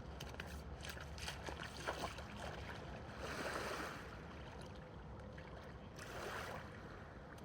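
Faint water sloshing against a dock over a low steady rumble, with two short swells of splashing about three and six seconds in and a few small clicks near the start.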